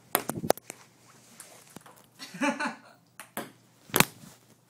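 Table tennis ball struck back and forth: sharp clicks of the ball on paddles and table, a quick cluster at first, then a few more with the loudest near the end. A brief voice sound in the middle.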